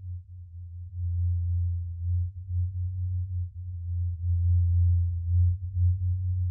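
A deep, low bass drone that swells and dips in loudness, with no higher sounds over it.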